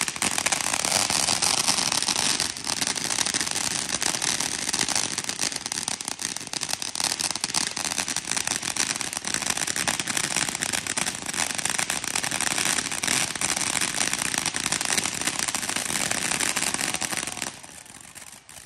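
Fireworks crackling: a dense, continuous rattle of rapid small pops that starts suddenly and stops abruptly after about seventeen seconds.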